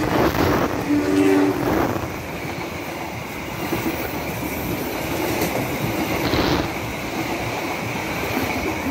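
Passenger train hauled by two diesel-electric locomotives passing at close range; the locomotive gives way to the coaches' wheels clattering over the rail joints. A short steady two-note tone sounds about a second in.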